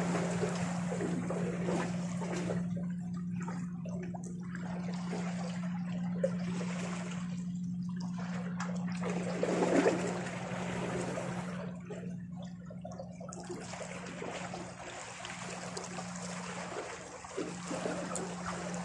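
Small sea waves washing and trickling among shoreline rocks, rising and falling in surges, with a steady low hum underneath.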